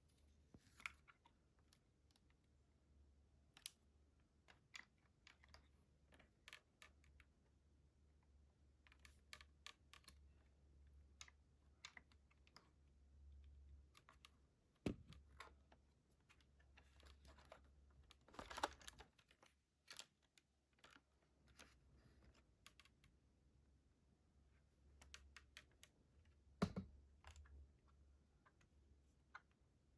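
Faint, irregular small clicks and light clatters over a low hum, with a few louder knocks about halfway through and near the end.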